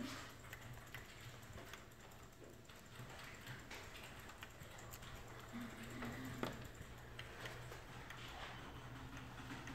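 Faint, scattered clicks of a computer mouse being clicked and scrolled, with a low steady hum underneath.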